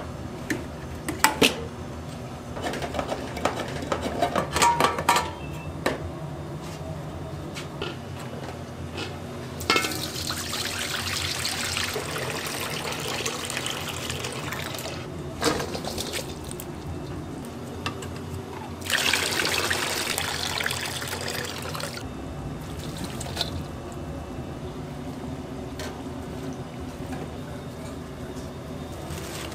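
Liquid running or pouring in two spells, the first about five seconds long and the second about three, after a few seconds of scattered clicks and clatter.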